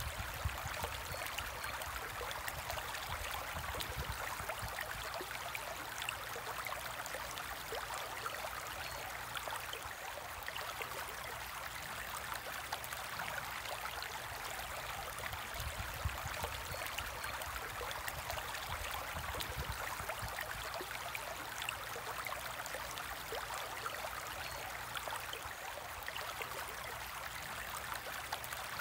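Steady trickling and bubbling of water in a home aquarium, with many small ticks of popping bubbles or falling drops and a low rumble underneath.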